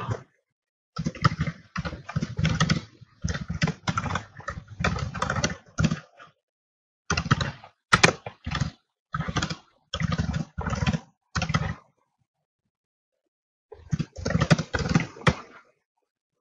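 Typing on a computer keyboard, rapid keystrokes in bursts with short pauses between words and lines.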